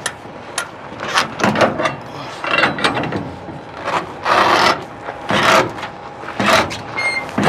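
Flatbed trailer strap winch being cranked tight with a winch bar: the strap rubs and scrapes on the winch in repeated strokes. A short squeak comes near the end.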